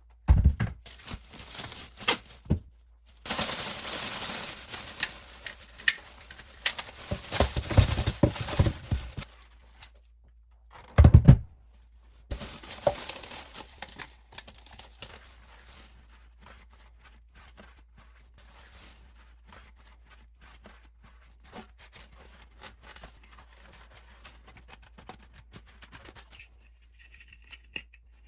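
Plastic parts of a Dyson cordless vacuum's dust bin being handled and taken apart: clicks and knocks, with stretches of scratchy rustling, then faint small clicks.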